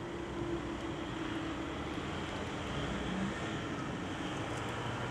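Steady road-traffic noise from queued cars at a level crossing, with a steady low hum that fades out about three and a half seconds in.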